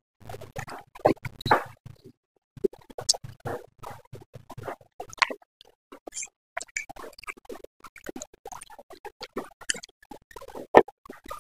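A person slurping and chewing noodles: a dense, irregular run of short wet smacks, clicks and slurps.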